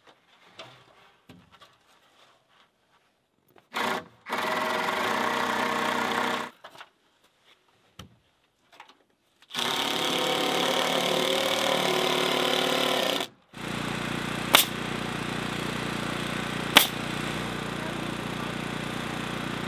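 A power tool runs twice, for about two and then three and a half seconds. Then a steady machine drone sets in, broken by two sharp shots about two seconds apart, typical of a pneumatic nail gun driving nails into the one-by roof boards.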